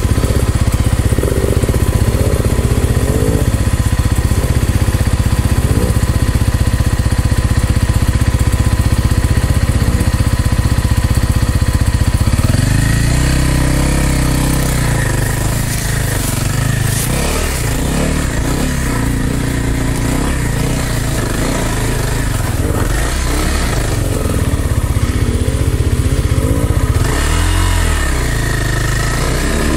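Dirt bike engine running at a steady pitch for about twelve seconds, then revving up and down in short pulls for the rest of the time.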